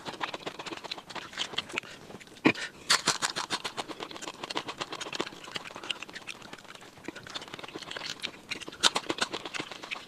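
Close-up eating sounds of a man eating fried quail with his fingers: a dense run of wet smacks and clicks from chewing and lip-smacking, with one sharper knock about two and a half seconds in.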